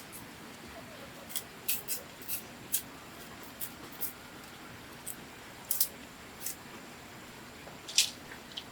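A series of short, sharp clicks and snips at irregular intervals, the loudest near the end.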